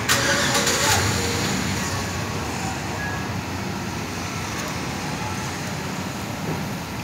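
Road traffic on a wet street: a loud hiss for about the first second, then a steady rumble of vehicles.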